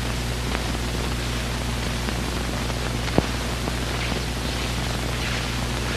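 Steady hiss and low hum of an old film soundtrack, with a faint click about three seconds in.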